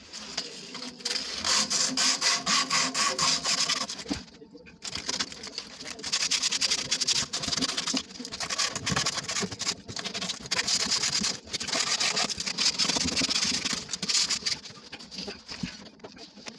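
Abrasive paper rubbed back and forth on the end of a PVC drain pipe: fast, scratchy sanding strokes in several bouts with short pauses between them. The pipe end is being sanded smooth before a new PVC tee is glued on.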